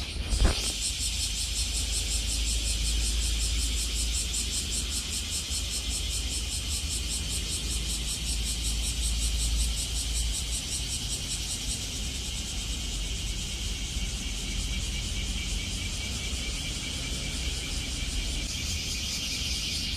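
A steady chorus of insects calling in a high, rapidly pulsing trill, over a low rumble underneath.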